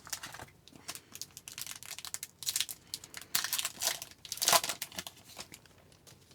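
A 2020-21 Upper Deck Series 2 hockey card pack wrapper being torn open and crinkled: a dense run of crackles that dies away about five seconds in.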